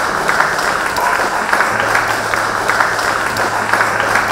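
Audience applauding, many hands clapping together at an even level.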